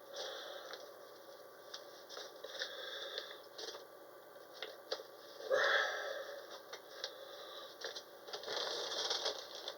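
Faint handling noises: soft rustling and small clicks, with a louder rustle just past halfway and another rough stretch near the end.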